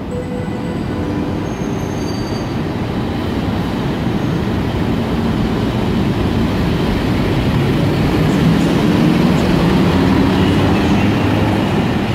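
PKP Intercity EP07 electric locomotive pulling away on its own, uncoupled from its train, running and rolling on the rails as it passes close by. It grows gradually louder, loudest about two thirds of the way through.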